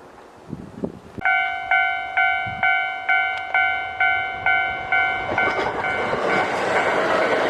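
Japanese level-crossing warning bell starting about a second in, ringing at about two strikes a second. Near the end the rising noise of an approaching Kintetsu Osaka Line train swells over it.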